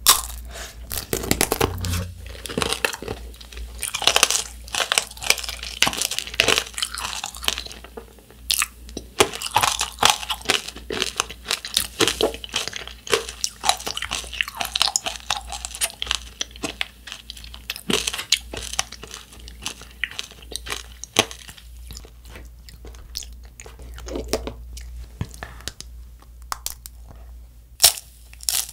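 Crunching and chewing of candy-coated macarons on sticks: the thin hard sugar-syrup tanghulu shell cracks between the teeth in dense sharp crackles. There is a loud crack at the very start and another just before the end.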